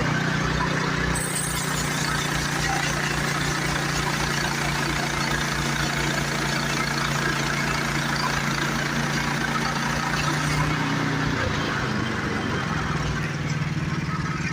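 Small gas engine of a portable band sawmill running steadily, its note shifting about eleven seconds in.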